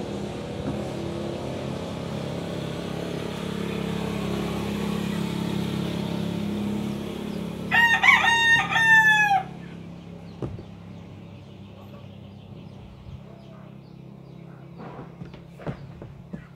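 A rooster crows once, a loud cock-a-doodle-doo of several notes about eight seconds in, the last note falling away. Before it, the low steady hum of a passing vehicle fades out.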